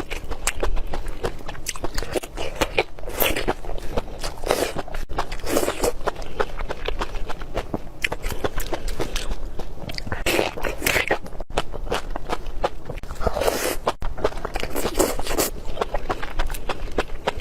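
Close-miked eating: someone biting and chewing food, with crunching bites coming every second or so.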